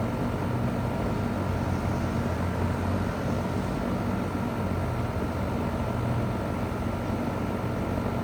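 2001 Goodman CPLE30 2.5-ton heat pump running steadily in cooling mode: its Copeland reciprocating compressor hums low under the rush of the condenser fan, with a thin steady high tone over it.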